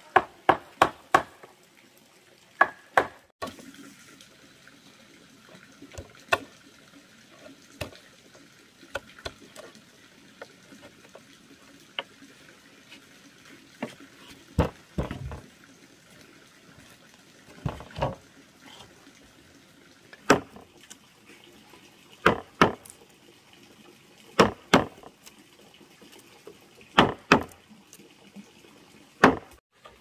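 Sharp knocks and clacks of hard objects at irregular intervals, some single and some in quick twos and threes, over a faint steady hiss.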